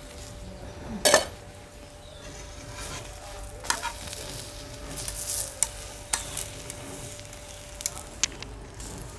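Potato-stuffed paratha sizzling on a tawa over a wood fire, with a metal spatula scraping and tapping the pan now and then; the sharpest clack comes about a second in.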